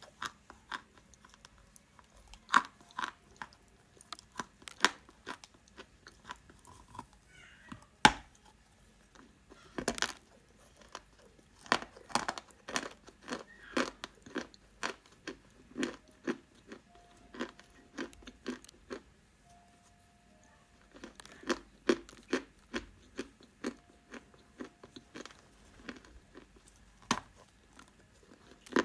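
Dry edible clay being bitten and chewed close to the microphone: sharp, irregular crunches, several a second, with a short pause about two-thirds of the way through.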